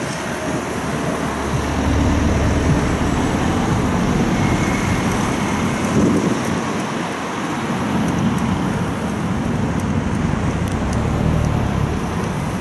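Road traffic: cars passing close by, with a steady rumble of wind on the microphone.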